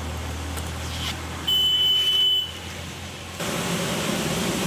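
Steady low drone of a car's cabin while driving, with a loud, high, steady electronic beep lasting about a second, a little over a second in. Near the end the drone cuts off abruptly and an even rushing noise takes over.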